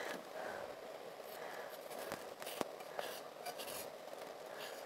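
Faint, irregular scraping strokes of a blade peeling a carrot by hand.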